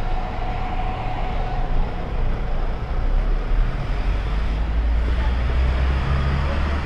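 City-street road traffic: a steady wash of vehicle noise, with a low engine rumble that grows heavier in the second half and eases near the end.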